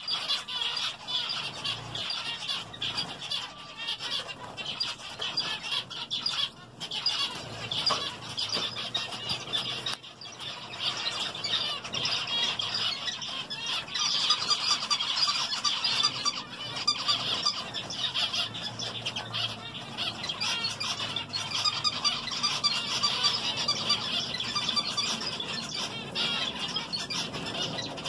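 A flock of zebra finches calling without pause, a dense chatter of many short overlapping calls, a little louder from about halfway through.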